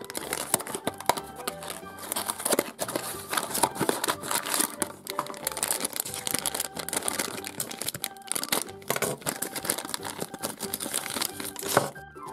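A small cardboard box is torn open by hand, then a plastic sachet is crinkled and torn open to get a toy figurine out. Crackling and rustling runs throughout, over light background music.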